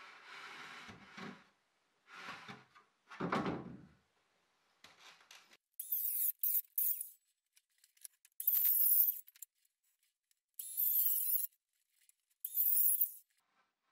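Cordless circular saw cutting through a thin wooden plank in four short runs of about a second each, a high whine that wavers under load. Before the cuts come a few wooden knocks and handling noises.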